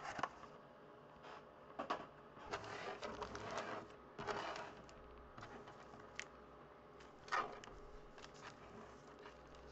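Sealed foil trading-card packs (2013 Topps Update hobby packs) being shuffled and restacked on a tabletop: scattered soft crinkles and taps, a longer rustle about three seconds in, and a sharper crinkle about seven seconds in.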